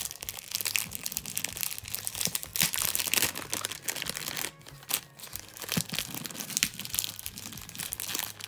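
Thin clear plastic wrapping crinkling and rustling as it is pulled off a new 6x6 speed cube, in quick irregular crackles with a brief lull about halfway through.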